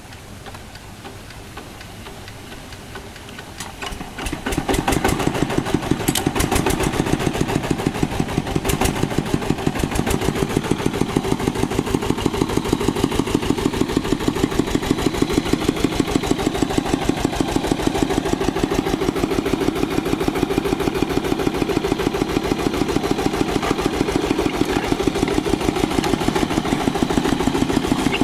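Single-cylinder diesel engine of a two-wheel hand tractor being hand-cranked, catching about four seconds in, then running steadily with an even, rapid beat.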